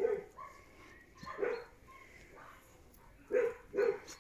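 A dog barking: a few short single barks, one about a second and a half in and two in quick succession near the end.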